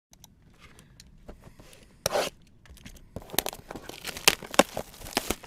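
Plastic packaging crinkling and tearing: a short rip about two seconds in, then a quick run of sharp crackles and clicks.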